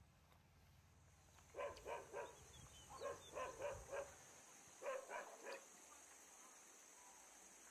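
A dog barking in three quick runs: about three barks, then five or six, then four.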